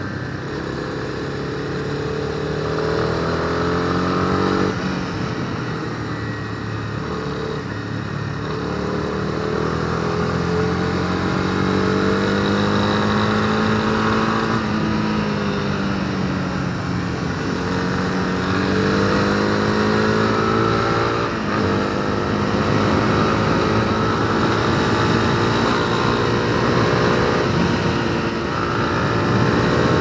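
Honda CB300R's single-cylinder engine pulling hard under acceleration, its pitch climbing and then dropping sharply at each upshift, about four, eight and twenty-one seconds in. In the middle it eases off and the pitch falls for a few seconds before it climbs again.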